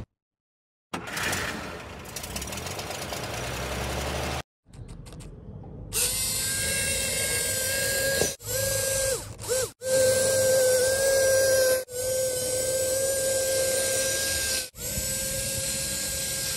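Small electric motor of a homemade model train running: a noisy whirr, then from about six seconds in a steady, high-pitched whine. The whine cuts off briefly several times.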